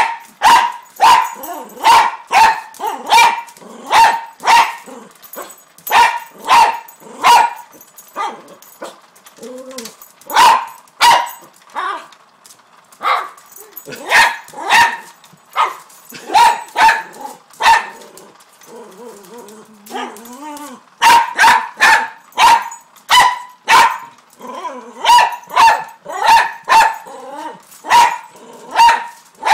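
Toy fox terrier barking at a Hexbug Nano: runs of sharp, high-pitched barks about two a second. In a pause about two-thirds through, the dog growls low before barking again.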